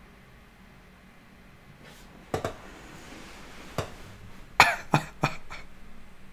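A man's short, breathy bursts of laughter: two single huffs, then four quick ones in a row past the halfway mark.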